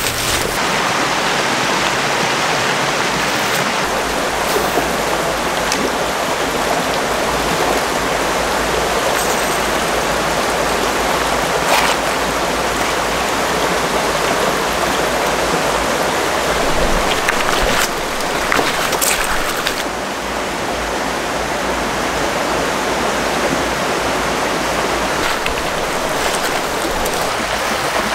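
Small mountain creek's water running steadily over rocks, a continuous rushing with a few brief clicks.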